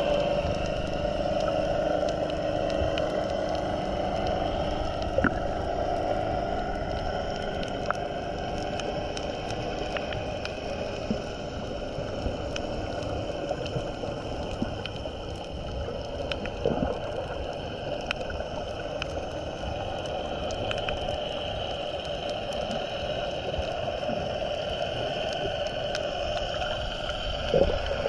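Underwater sound picked up by a submerged action camera: a steady wash of noise with many faint scattered clicks, and a few louder knocks near the end.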